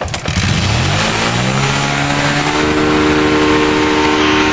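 Motorcycle engine revving up: its pitch climbs for about two seconds, then holds steady at high revs.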